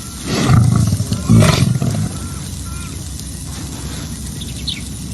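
Lion sneezing twice in quick succession: two loud, deep, rough bursts about a second apart.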